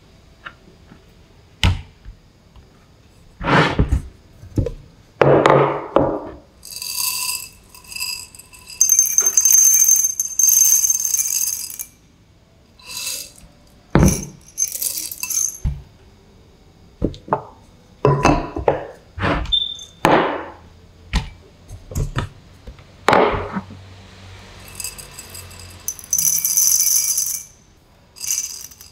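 Ceramic cups and bowls knocked and clinked down on a wooden counter, with stretches of hissing rattle as whole coffee beans are poured from a canister into a ceramic cup.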